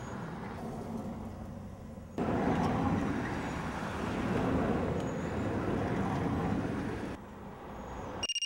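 Street traffic noise heard from inside a car, growing louder from about two seconds in and dropping back near the end.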